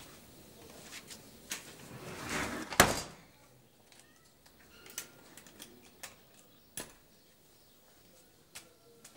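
A house door swinging shut with a bang about three seconds in, followed by a few light clicks at the lock as it is locked.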